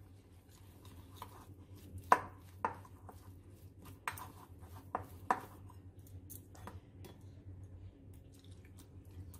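Metal spoon scraping and tapping against a bowl while stirring a dry mix of flour and spice powders, in light, irregular clicks with a few sharper taps.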